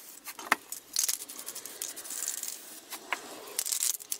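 Spray paint cans being handled, with metal clinks and rattles, and short hissing bursts of spray paint being sprayed onto poster board.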